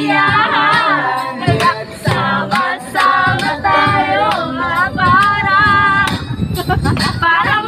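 A group of men and women singing together unaccompanied, with hand claps, heard inside a van cabin.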